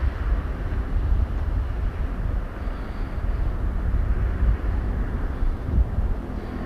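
Outdoor ambience: a low, uneven rumble with gusty buffeting and a fainter hiss above it, with no distinct event.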